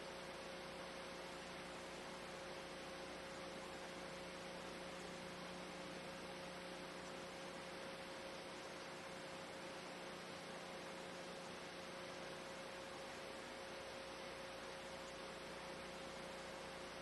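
Faint, steady hiss with a low hum and a thin steady tone running under it: the background noise of an old analog video recording, with no other sound.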